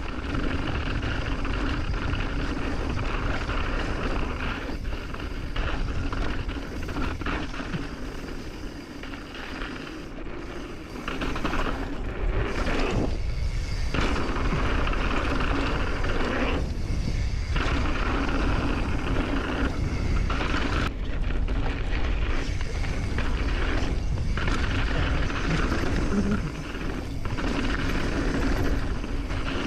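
Mountain bike descending a dirt trail: tyres rolling and rattling over the ground, with wind buffeting the GoPro's microphone as a steady rumble. The tyre noise breaks off briefly several times through the run.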